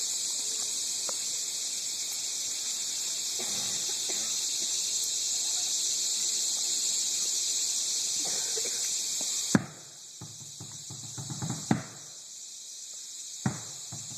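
A steady high-pitched hiss that cuts off with a sharp knock about nine and a half seconds in, followed by a few scattered knocks near the end.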